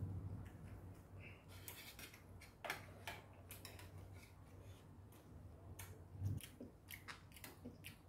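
Metal chopsticks and a metal spoon clicking and scraping against a stainless steel compartment tray: scattered light, irregular clicks.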